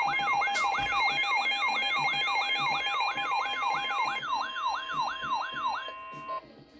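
Emergency alert tones for a severe thunderstorm warning: a siren-like falling sweep repeating about three times a second, layered over steady attention tones. The steady tones drop out about four seconds in, the sweep stops near the end, and a brief lull follows.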